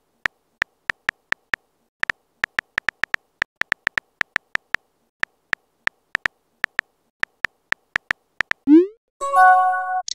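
Simulated phone-keyboard key clicks as a text message is typed: short ticks at an uneven, quick pace of several a second. Near the end a rising swoop and a short chime of a few tones, the chat app's message-sent sound.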